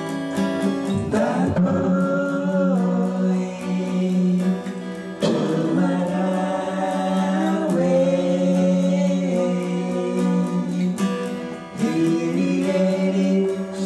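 Steel-string acoustic guitar strummed in a slow chord pattern, with a singing voice coming in about a second in.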